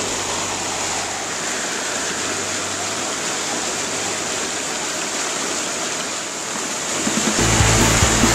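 Whitewater rushing and churning over a standing river wave, a steady roar of foaming water. About seven seconds in, a low, rhythmic beat of background music comes in over it.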